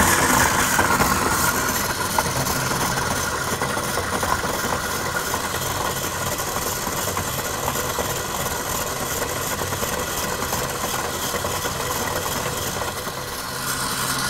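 Electric stand mixer running steadily on medium-high speed, its beater whipping butter and cream cheese in a steel bowl.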